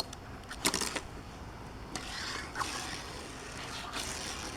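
Hot Wheels die-cast toy car being pushed and slid along a toy track: a few light clicks and clacks in the first second, then a soft rolling scrape for about a second and a half.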